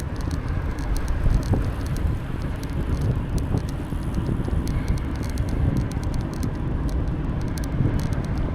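Steady low rumble of wind on the microphone and tyres on the path while riding a bicycle, with scattered light ticks and rattles from the bike.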